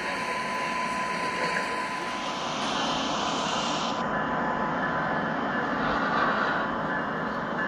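Steady engine rumble with a rushing noise; the higher hiss drops away about four seconds in.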